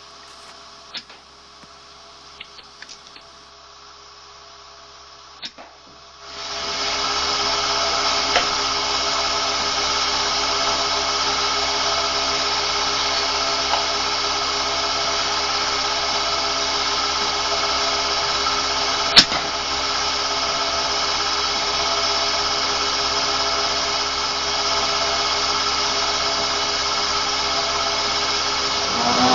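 Dairy farm milking compressor running with a steady mechanical hum and whine, cutting in loudly about six seconds in after a quiet start. A single sharp crack sounds about two-thirds of the way through.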